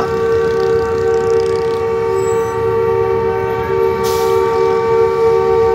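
Diesel locomotive's air horn held in one long, steady blast of several notes at once as the train approaches.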